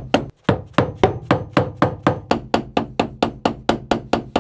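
Hammer tapping on a screwdriver held against a rusted-in key in a sailboat's rudder shaft: rapid, even metal strikes about four a second, each with a short ring, as the key refuses to budge.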